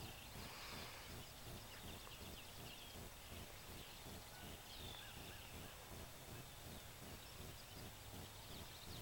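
Faint outdoor background noise with a few distant bird chirps scattered through it.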